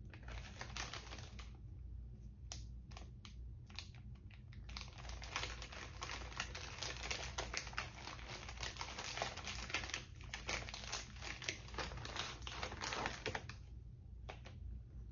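A small package being opened by hand: scattered clicks and crinkling at first, then a dense run of crinkling and rustling from about five seconds in until near the end, where it thins back to a few clicks.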